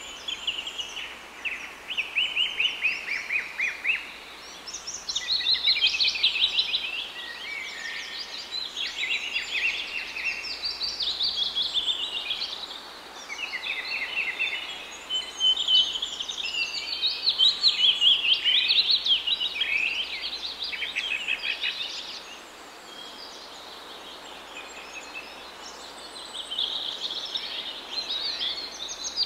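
Small birds singing and chirping continuously in rapid high trills and repeated notes, with a brief lull about two-thirds of the way through.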